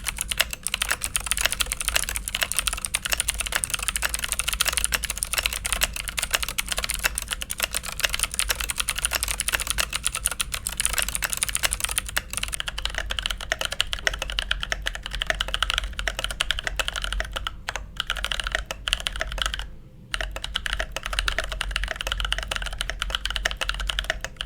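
Fast, continuous typing on a Keychron K8 mechanical keyboard, a dense clatter of keystrokes. In the first half the keys have a sharp, bright click, typical of clicky blue switches. About halfway the sound turns less bright, as with JWK Black T1 tactile switches, and there is a brief pause in the typing late on.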